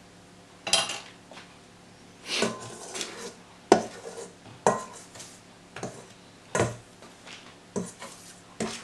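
A utensil clinking and knocking against a mixing bowl as dry pancake ingredients are stirred, in irregular strikes about once a second.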